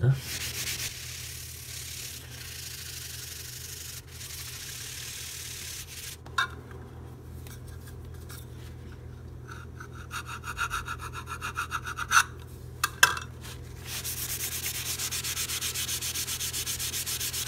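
Tissue paper rubbed back and forth over a wax-filler patch in an engineered wood floor, buffing the repaired dent smooth. The rubbing is loudest and most regular in the last few seconds, with a few short knocks in the middle.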